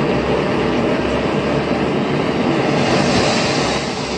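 Portable gas camping stove burner running steadily at full flame, with a constant hiss and rumble, heating a small metal cup of water.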